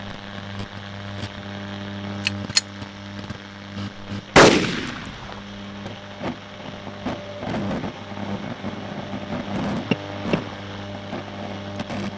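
A single loud gunshot about four seconds in, with a long echoing tail, after two sharp clicks a couple of seconds earlier; a steady low hum runs underneath.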